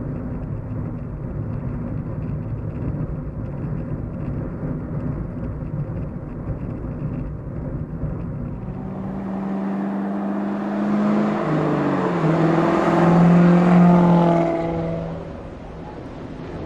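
A Hyundai car being driven, heard from inside the cabin as a steady low engine and road rumble. About nine seconds in, a louder swell with several held low tones builds for about six seconds, then fades back to the rumble.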